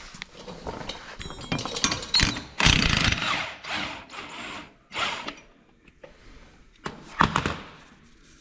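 Mastercraft impact gun hammering in several short bursts, the longest and loudest about two and a half seconds in, as it works loose 14 mm nuts; clicks and knocks of the socket and tools between bursts.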